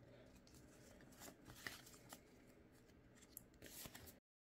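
Faint soft clicks and rustles of Pokémon trading cards being slid and flipped through by hand. The sound cuts off suddenly near the end.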